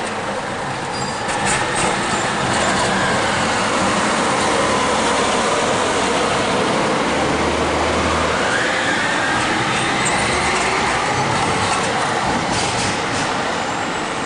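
Low-floor articulated tram passing on street track, loud and steady, with a faint whine that dips and then rises in pitch as it goes by.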